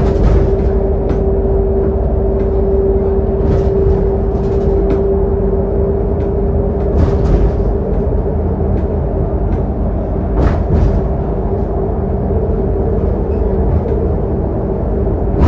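Scania K280UD double-decker bus heard from inside the lower deck while cruising: its five-cylinder diesel and the road make a steady drone. Over this runs a steady whine that fades around the middle, and there are a few brief rattles.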